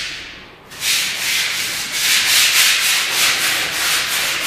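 Freshly plastered wall being sanded by hand with a sanding float: rhythmic scraping strokes, about three or four a second. The scraping dips briefly about half a second in, then carries on steadily.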